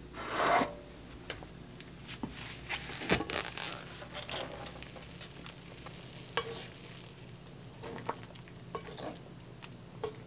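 Beef and radish soup bubbling at the boil in a pot while a wooden spoon stirs it, with scattered light clicks and knocks of the spoon against the pot. A short louder rush of noise comes right at the start.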